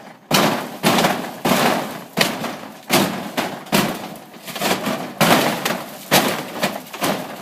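Fiberglass roofing being smashed: about ten hard blows, roughly one every three-quarters of a second, each a sharp crack that trails off in a brief crackle as the panel breaks up.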